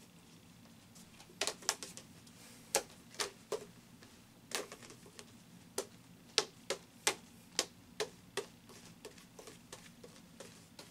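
Three light-up juggling clubs being juggled, smacking into the hands as they are caught: a run of sharp, irregular clacks, about two a second, loudest through the middle and fainter near the end.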